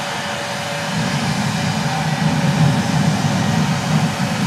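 Jet engine of a jet-powered vehicle running up, a low, noisy rumble that grows louder about a second in, with a faint steady whine above it.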